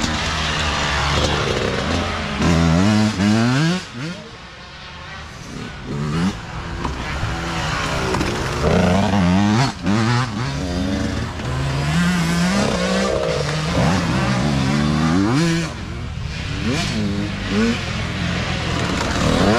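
Several youth dirt bikes ride past one after another, their small engines revving up repeatedly through the gears and dropping back between throttle pulls. The engine note eases off about four seconds in, then builds again as the next bikes arrive.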